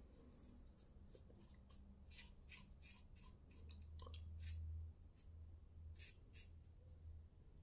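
Safety razor scraping through lathered stubble in a quick series of short, faint strokes, about a dozen, clustered into runs.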